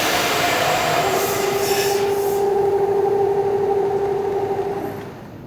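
Helical end mill taking an adaptive iMachining roughing cut in steel on a CNC knee mill: a steady pitched cutting tone over a grinding hiss. The sound stops about five seconds in.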